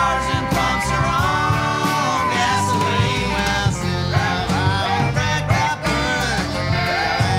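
Rock band music between sung lines: a bending lead melody over steady bass and regular drum strokes.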